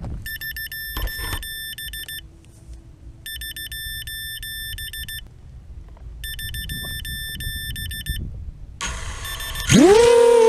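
A racing quadcopter's electronics beeping in three rapid, chattering bursts of about two seconds each. Then its brushless motors spin up with a whine that climbs steeply in pitch about ten seconds in, louder than anything else, as the throttle is opened for takeoff.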